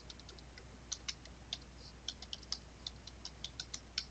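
Computer keyboard keys being typed: faint, irregular key clicks, a dozen or more over a few seconds.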